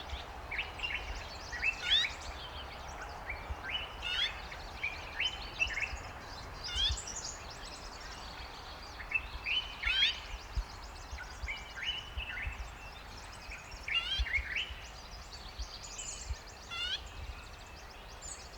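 Green-backed camaroptera calling: short, sharp repeated notes and quick sweeps in irregular bouts, over a steady low rumble.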